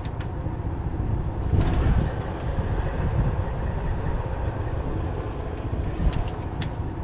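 Semi-truck diesel engine idling steadily, with a few light clicks over it.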